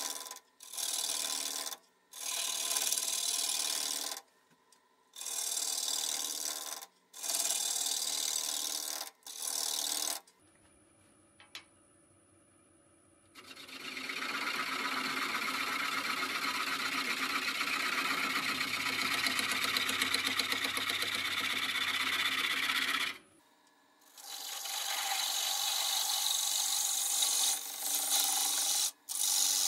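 A gouge cutting spinning stone pine on a wood lathe, a rasping scrape of the tool shaving the wood. It comes in short passes of a second or two with brief breaks, goes quieter for a few seconds, then runs as one long unbroken cut of about ten seconds, followed by more short passes.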